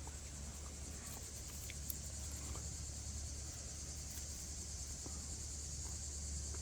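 Steady high-pitched chorus of insects in summer woods, with a low steady rumble underneath and a few faint clicks.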